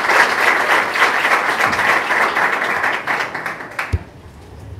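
Audience applause and clapping that thins out and stops abruptly about four seconds in, with a low thump as it ends.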